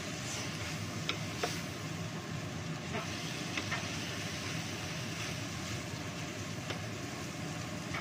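Rice frying in a nonstick frying pan over a high gas flame: a steady hiss and rumble, with a wooden spatula scraping and knocking lightly against the pan several times as the rice is stirred.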